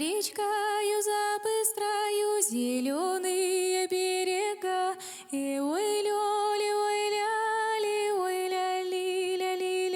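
Background music: a slow melody of long held notes that waver slightly and slide upward from one note to the next.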